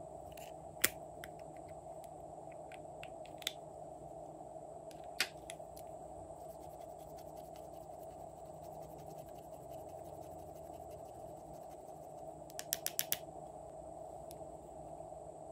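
Handling of a plastic eyeshadow compact: a few sharp plastic clicks, then fine scratching as a small plastic spatula scrapes the pressed eyeshadow, and a quick run of four or five clicks near the end. A steady faint hum lies underneath.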